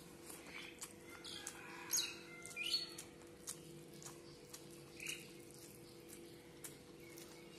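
Eating by hand, close to the microphone: wet chewing and lip smacks with scattered small clicks, and a few louder squelchy smacks about two to three seconds in. A faint steady hum runs underneath.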